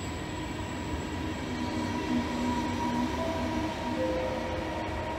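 Double-deck electric regional train pulling slowly out of the station: a low rumble with an electric whine in short steady tones that change pitch as it gathers speed.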